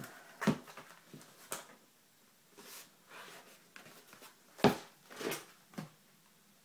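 A parcel being handled and opened: scattered knocks and short scrapes, about half a dozen in all, with the loudest knock about two-thirds of the way in.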